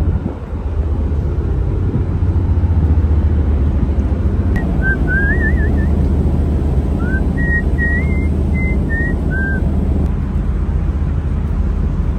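Steady low drone of a ship's engines, with a person whistling a short gliding tune for about five seconds in the middle.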